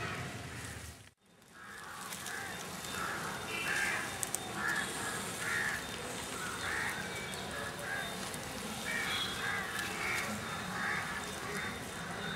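Birds calling over and over in the background, in short irregular calls, after the sound cuts out briefly about a second in.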